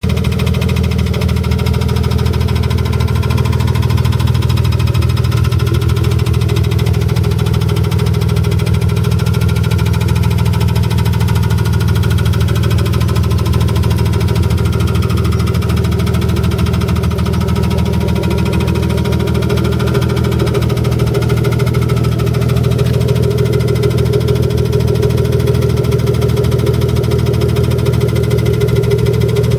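BMW S52 straight-six engine running steadily at a constant speed, with a fast, even knocking/ticking from the engine, heard through the closed hood.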